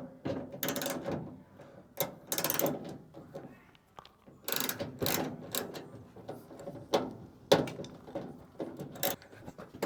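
Socket ratchet wrench clicking in several short runs as screws are turned.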